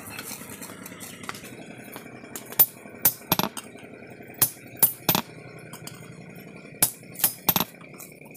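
Sledgehammer blows on a tong-held set tool resting on a hot iron spade blade on the anvil, as the blade is forged. The metallic clanks come in three quick groups of three.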